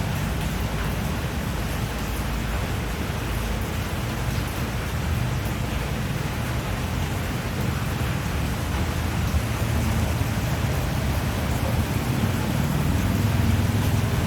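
Steady rain falling: an even hiss with a low rumble underneath that swells a little near the end.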